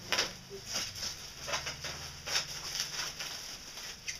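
Plastic bubble wrap rustling and crinkling in short, irregular crackles as it is pulled out of a shipping box and handled, over a steady low hum.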